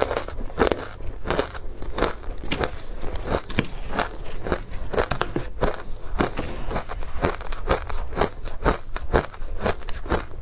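Close-up chewing of soft, powdery matcha-coated ice: a dense run of crisp crunches, several a second.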